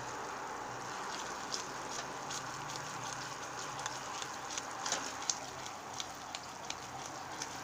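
Gelatin and coconut-oil gummy mixture simmering in a pot on the stove: a steady bubbling hiss with scattered small pops and ticks.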